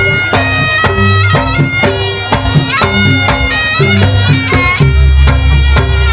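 Live East Javanese jaranan band music: a shrill, reedy slompret shawm plays a melody over a steady beat of kendang drums and gamelan percussion, heard loud through the PA loudspeakers.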